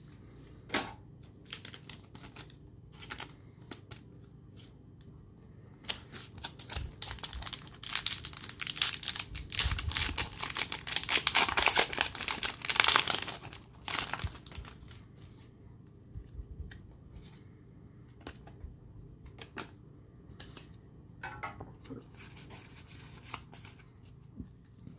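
Foil Pokémon booster pack wrapper being torn open and crinkled. The tearing and crinkling run thick from about six seconds in to about fourteen, loudest near the end of that stretch, with softer scattered rustles and taps before and after.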